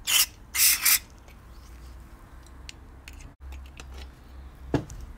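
Aerosol carburettor cleaner sprayed in three short hissing squirts through a carburettor's passages within the first second, followed by small clicks and a light knock of parts being handled near the end.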